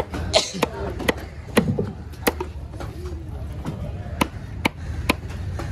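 Fish-cutting knife chopping through a trevally onto a cutting block: about eight sharp strikes roughly half a second apart, pausing for a couple of seconds in the middle before resuming.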